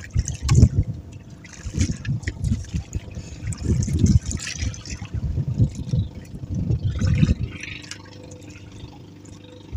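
Choppy sea water splashing and lapping against a small wooden outrigger boat, with uneven gusts of wind buffeting the microphone that ease off near the end.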